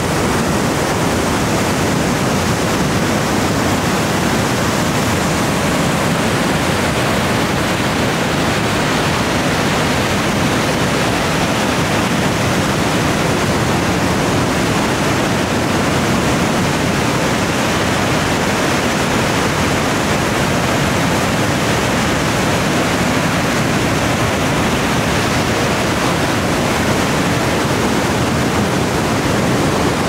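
Box Canyon Falls pouring through a narrow rock slot: a loud, steady rush of falling water.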